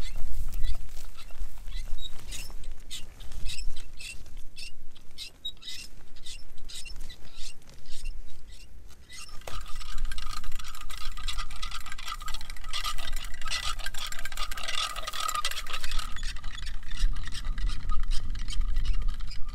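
Wind buffeting the microphone, with a run of light clicks through the first half. About halfway in, a steady high tone starts and continues to the end.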